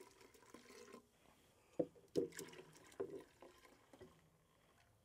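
Water poured from a plastic blender jug into a stainless steel pot: a faint steady trickle for about a second, then four or five separate splashes and drips as the jug empties.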